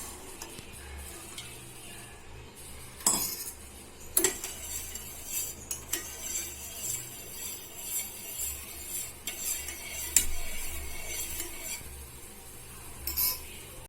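Spoon stirring in a cooking pot, with light scraping and a few sharp knocks of metal against the pot scattered through.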